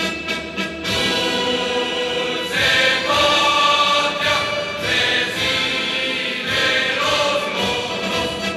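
A choir singing sustained phrases over orchestral accompaniment, swelling louder about three seconds in.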